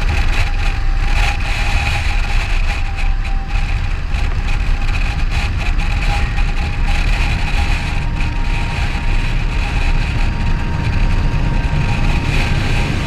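BMW F650CS Scarver's single-cylinder engine running while riding, under a heavy, steady rumble of wind buffeting the action-camera microphone.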